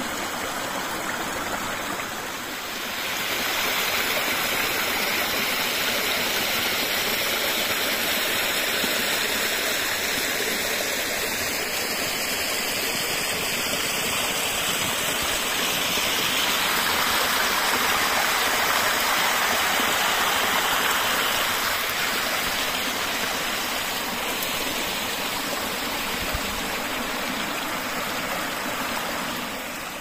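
Small mountain stream running over rocks: a steady rushing water sound that grows louder about three seconds in.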